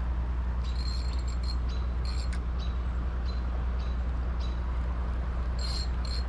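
Steady rush of flowing creek water, with short high-pitched chirps now and then.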